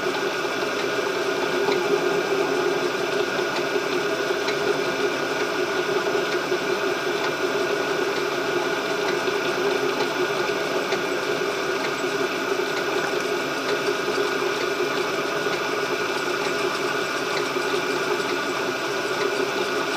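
A metalworking machine tool running steadily, with a constant motor hum and mechanical rattle, while a part is cut down toward its final size.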